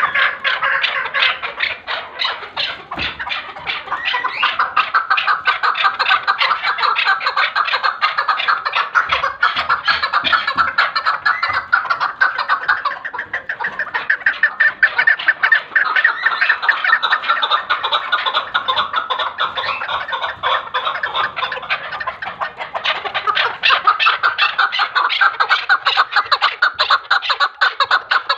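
Chukar partridge calling: a fast, unbroken run of short repeated clucking notes.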